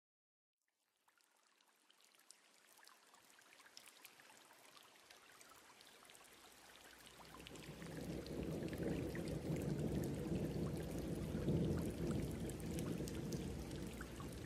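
Carbonated red wine and soda fizzing: a crackle of many tiny bubble pops that starts faint after a silent first second and grows into a louder, fuller fizzing rush about halfway through.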